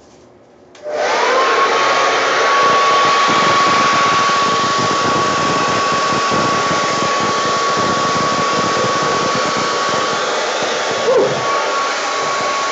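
Hair dryer with a concentrator nozzle switched on about a second in, blowing steadily with a constant high motor whine over the rush of air, and switched off near the end as the whine drops away.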